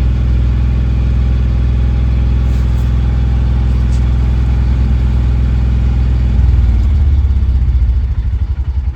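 Mahindra Jeeto BS6 diesel engine running at a raised, steady speed during the DPF cooling-down stage after a forced regeneration. About six seconds in the engine note changes and gets a little louder, and near the end it breaks into an uneven, pulsing beat.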